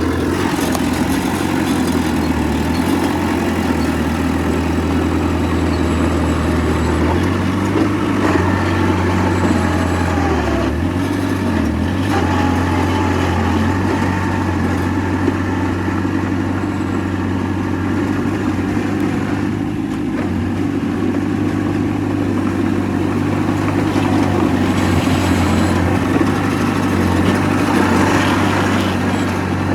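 Heavy diesel engine of earthmoving machinery running steadily, a low drone whose pitch shifts slightly about seven seconds in and again around eleven seconds.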